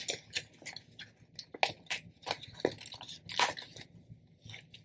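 Tape being peeled off sublimation paper and the paper crinkling and rustling in the hands: a run of small, irregular crackles and ticks.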